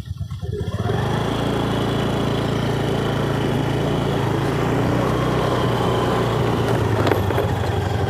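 A motorcycle engine running steadily on the move along the road, fading in during the first second.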